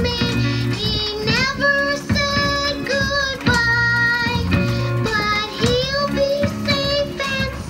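Animatronic stage show's song playing through the show's speakers: a high-pitched lead voice sings over a band backing with a steady bass, several notes sliding up into held tones.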